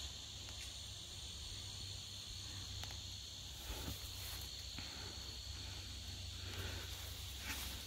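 Steady, high-pitched chorus of insects chirring in the woods, with a few faint clicks scattered through it.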